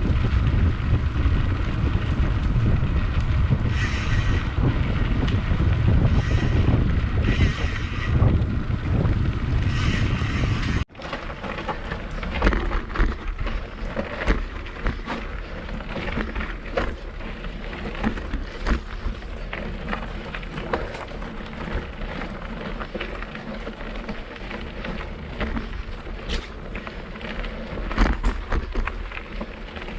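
Wind buffeting the microphone of a moving bicycle. About a third of the way in, the wind drops suddenly, leaving the rattle and scattered clicks and knocks of the bike rolling over a rough trail.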